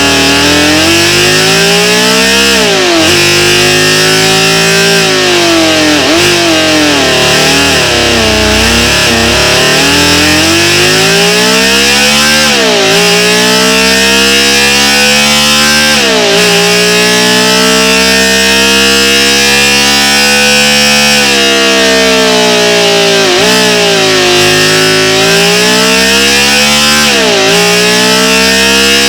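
Synthesized high-revving inline-seven engine sound, built in FL Studio, revving up and down with its pitch rising and falling and dropping suddenly about five times, like gear changes.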